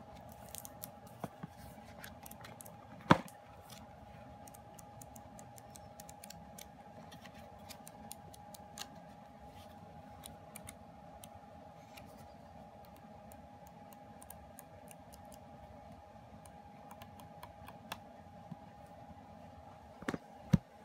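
Glossy pages of a K-pop album photobook being handled and flipped, with many small paper ticks and flicks. There is a sharp knock about three seconds in and two more near the end, over a faint steady tone.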